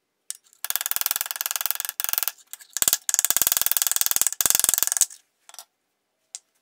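Hammer planishing a thin 16-gauge steel ladle bowl over a steel ball hitch, sped up in a time-lapse so the metal-on-metal taps run together into fast rattling runs. There are two long runs with short breaks, stopping about five seconds in.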